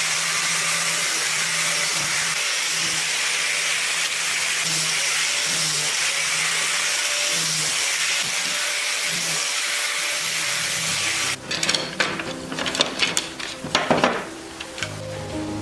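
A small motor-driven workshop tool running with a steady hissing whir, cutting off abruptly about eleven seconds in. Irregular sharp clicks and knocks follow.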